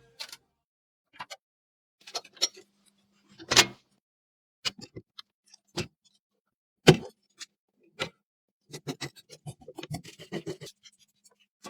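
Irregular clicks, taps and knocks of PC parts being handled and fitted together, with two louder knocks, one about three and a half seconds in and one about seven seconds in, and a quick run of small clicks near the end.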